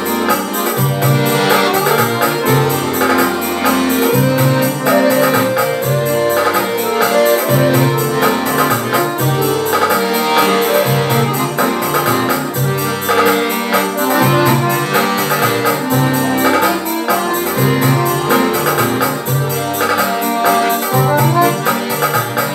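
Piano accordion playing a lively folk tune: a right-hand melody over a steady, regularly pulsing bass-and-chord rhythm.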